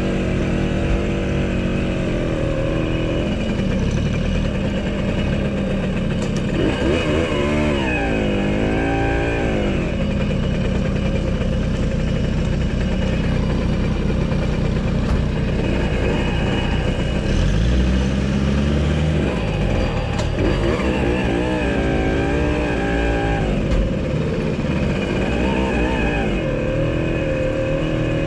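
Small vintage motorcycle engine running close by, idling and riding slowly, revving up and easing off several times.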